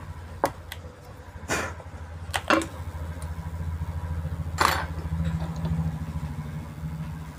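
A few sharp clicks and knocks as a circuit board is turned over and tweezers are picked up on a wooden workbench, over a steady low hum.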